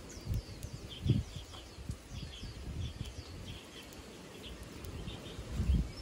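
Small aviary finches giving many short, high, falling chirps, several a second, while feeding. A couple of low thuds stand out, the loudest about a second in and another near the end.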